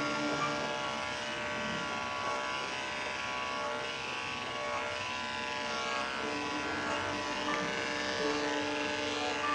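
Andis 5-speed corded electric dog clipper with a #10 blade and an Oster attachment comb, running with a steady buzz while it clips a dog's coat, over background music.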